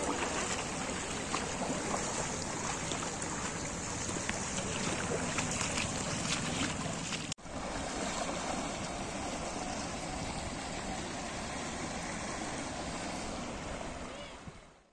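Steady wash of rushing floodwater, with some wind noise. It drops out for an instant about seven seconds in and fades away at the end.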